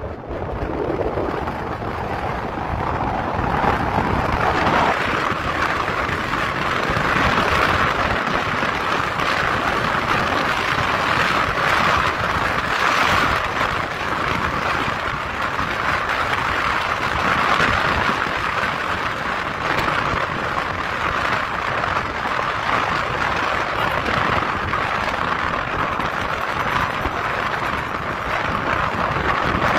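Steady wind rush and road noise from a moving car, with wind buffeting the phone's microphone at the side window.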